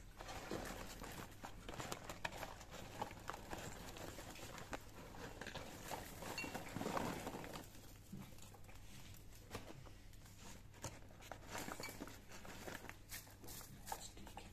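Popped popcorn being shaken out of a paper microwave-popcorn bag into a glass bowl and stirred by hand: rustling of the paper bag with many small ticks of popcorn falling and shifting, busiest about halfway through.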